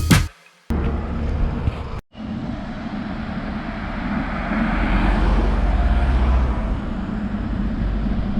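Road traffic: steady engine and tyre noise, swelling about halfway through as a vehicle passes and then easing off. A short break near the start where the recording cuts.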